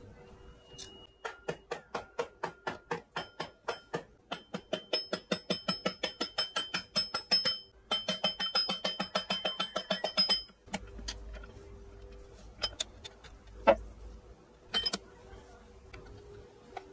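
Rapid metallic tapping with a ringing tone, in three runs of about four to seven strikes a second, stopping about ten seconds in; a few single knocks follow.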